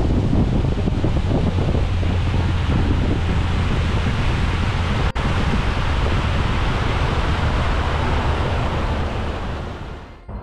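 Wind buffeting the microphone of a bow-mounted camera on a boat under way, with a steady low rumble from the boat and water beneath it. It drops out for an instant about halfway through and fades away near the end.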